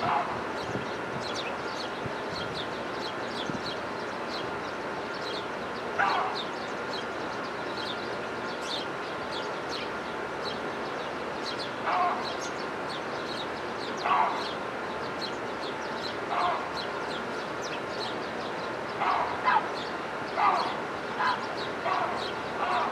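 Many small birds chirping steadily with short high notes, while a louder, lower-pitched call from another bird breaks in every few seconds, coming more often in the last few seconds.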